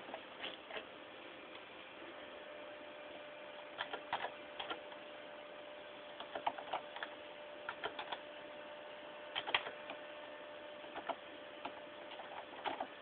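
Small groups of quick sharp clicks at irregular intervals of one to two seconds over a steady hum with a faint whine.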